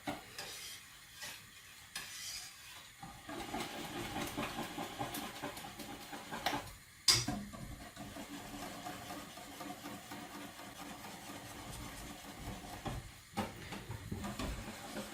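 Whisking the egg-based advocaat mixture in a bowl, a steady stirring sound, with one sharp knock against the bowl about seven seconds in.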